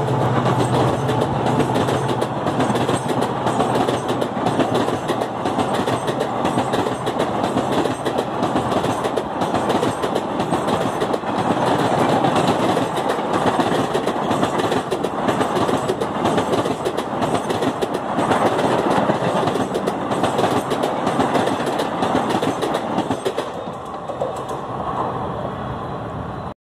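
Indian Railways passenger coaches running through at speed: a continuous noise of steel wheels on rail with clatter over the rail joints. The low drone of the WDP4D diesel locomotive fades in the first couple of seconds, and the noise eases near the end as the last coaches go by.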